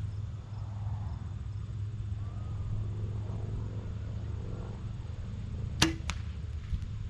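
Mathews V3 compound bow shot: one sharp snap of the string at release about six seconds in, followed by fainter knocks a fraction of a second later. A steady low rumble underlies it.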